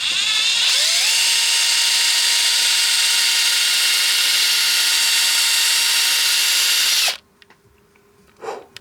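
Small electric drill spinning up with a rising whine over about a second, then running steadily as it bores a sound hole through a lamp's housing, stopping abruptly about seven seconds in.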